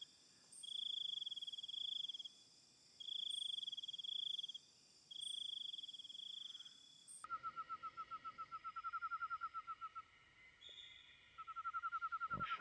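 Night insects trilling, crickets or katydids: a high buzzing trill in bursts of about a second and a half, repeating every two seconds, then, after an abrupt change about seven seconds in, a lower trill of rapid pulses that pauses briefly and resumes. A short knock sounds near the end.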